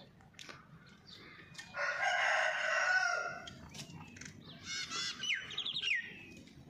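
Chickens feeding: a loud chicken call about two seconds in lasts about a second and a half. Beaks peck with scattered clicks, and a few short rising chirps come near the end.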